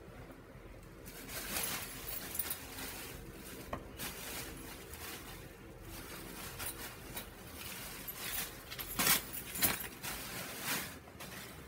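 Clear plastic wrapping crinkling and rustling in irregular bursts as it is pulled off and handled, loudest near the end.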